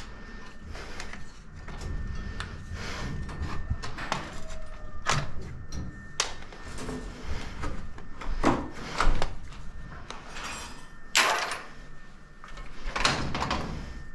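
Irregular scrapes and knocks of tools being worked by hand, with a few longer, louder scrapes in the second half.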